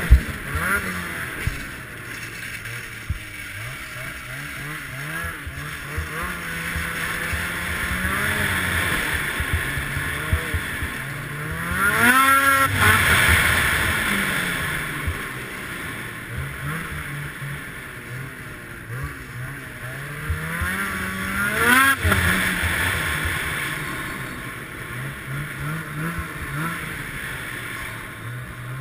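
Ski-Doo Summit X snowmobile's two-stroke engine running under way, its pitch rising and falling with the throttle, with two sharp rev-ups about twelve and twenty-two seconds in.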